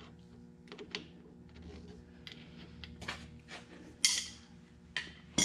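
Two adjustable wrenches clinking and scraping on an AN hose end fitting as it is threaded tight onto steel-braided oil-cooler hose, with scattered small metal clicks and a sharper metal clank about four seconds in.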